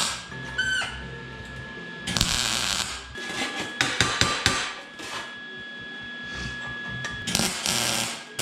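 A MIG welder tack-welding thin steel plates into a box, its arc running in a few short crackling bursts, with sharp knocks of the metal parts being handled about four seconds in.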